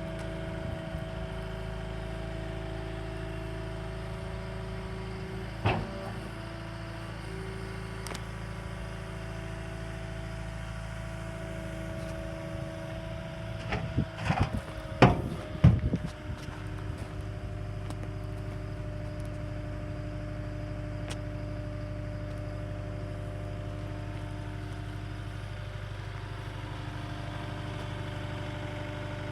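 Cat 262D skid steer's diesel engine running steadily at idle, with one sharp clank and then, about halfway through, a quick cluster of louder metallic knocks, after which the engine hum settles at a slightly different pitch.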